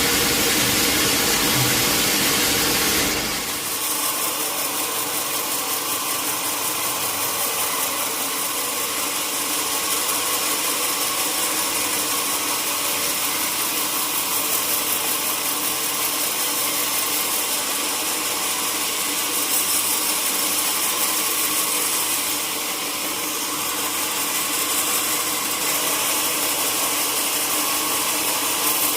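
Sawmill machinery running steadily with a continuous mechanical hum; a louder, fuller noise in the first three seconds or so cuts off suddenly, leaving the machine running.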